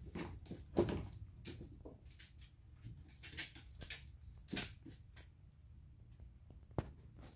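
A Shiba Inu's claws tapping and scuffing irregularly on patio tiles as it walks about sniffing, with its rope leash dragging across the tiles; a few louder taps stand out.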